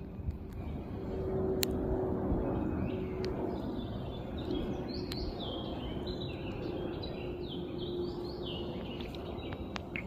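A small songbird singing a quick run of repeated high, sweeping notes for several seconds, starting a few seconds in, over a steady low drone and outdoor background noise.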